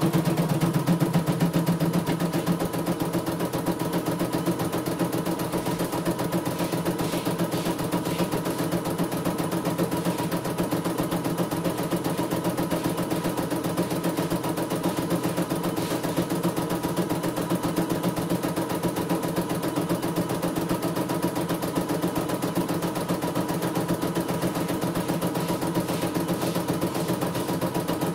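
CNY E900 computerized embroidery machine stitching at speed: a rapid, even needle clatter over a steady motor hum, with the hoop carriage stepping the fabric as the design is sewn. It is a little louder for the first two seconds, then settles.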